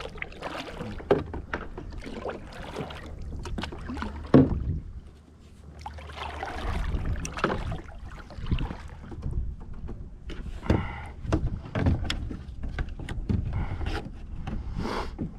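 Kayak paddling: irregular splashes of the paddle blades in calm water, mixed with short knocks of the paddle against the plastic hull.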